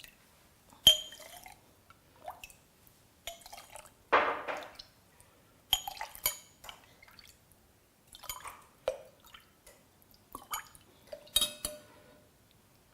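A metal spoon clinking irregularly against glass, with small splashes and drips of liquid, as a honey tea drink is spooned and stirred in a glass. The loudest clink comes about a second in.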